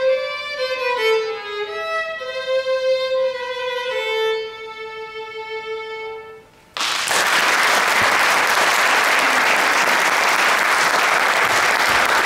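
Solo violin, bowed, playing a phrase that ends on a long held note and fades out; about half a second after the note dies, an audience breaks into steady applause.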